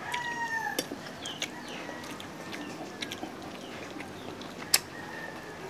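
A rooster's crow trailing off with a falling pitch about a second in, followed by fainter drawn-out calls and a few sharp clicks, the loudest near the end.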